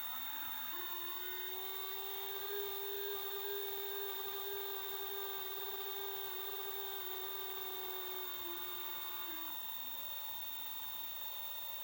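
Motor whine from a Tenniix tennis robot, the abnormal noise (異音) it has developed: a steady pitched whine with a constant high tone above it. The whine dips in pitch about a second and a half before the end and settles lower.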